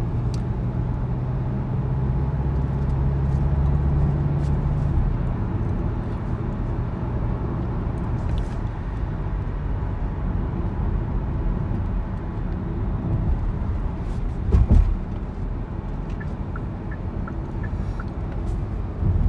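Steady low road and engine rumble inside a moving car's cabin, with one short thump about three quarters of the way through.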